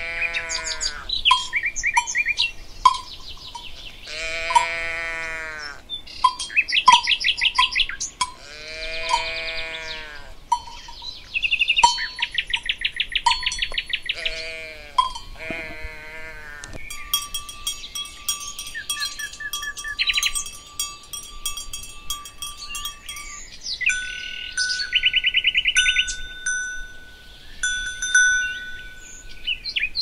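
Livestock calling four times, each a long call that rises and falls in pitch. Songbirds trill and chirp throughout, with clear ringing bell tones through the second half.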